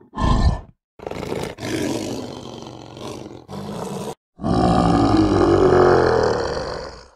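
Lion roaring: several shorter roars in the first four seconds, then one long, louder roar that cuts off near the end.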